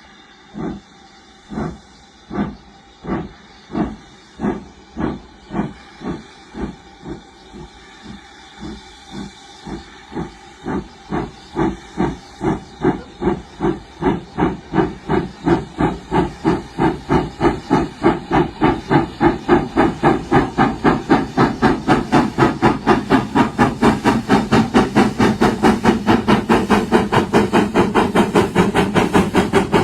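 Steam locomotive exhaust chuffing as it accelerates: the beats start slow and well spaced, then quicken steadily and grow louder until they come several times a second.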